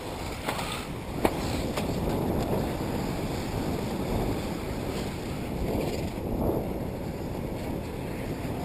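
Wind rumbling on the microphone, a steady low noise, with a sharp click about a second in.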